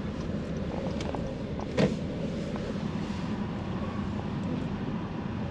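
Steady low engine and tyre hum heard inside a car's cabin as it drives slowly, with one short click about two seconds in.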